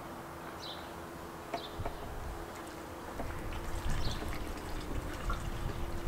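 Gasoline pouring from one red plastic gas can through its spout into another gas can, a steady trickle that grows louder and more uneven about halfway through.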